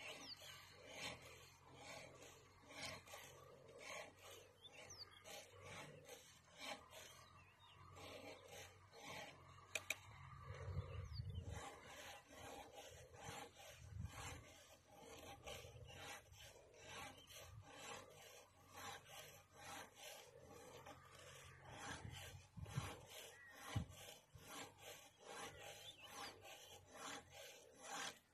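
Faint, steady rhythm of scraping strokes, about two a second, as of a hand tool being worked over and over, with a few dull low thuds in between.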